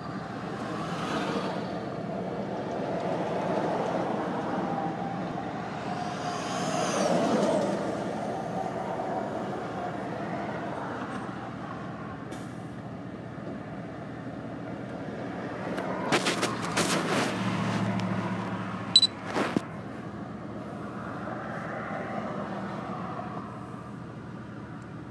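Road traffic: cars and trucks passing one after another in a steady noise that swells and fades several times. A few sharp clicks and knocks come about two-thirds of the way through.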